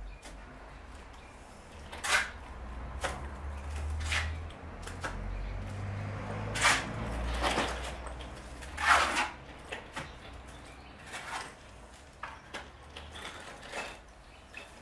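Steel plastering trowel scraping and tapping against fresh mortar on a brick wall: a series of irregular short scrapes, some longer and louder about two, seven and nine seconds in, over a faint low rumble.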